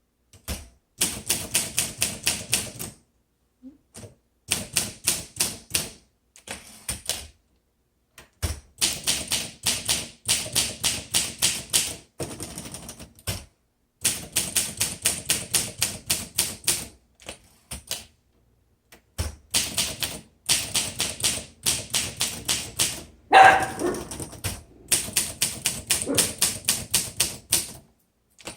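1957 Olympia SM3 manual typewriter being typed on: runs of crisp type-bar strikes, about five a second, broken by short pauses. About 23 seconds in comes a single louder sound with a brief pitched tone, the loudest moment.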